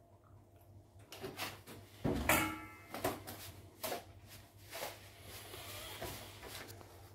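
Spoon scraping and knocking against a mixing bowl while stirring milk into scone dough, in irregular strokes about once a second, with one louder clunk about two seconds in.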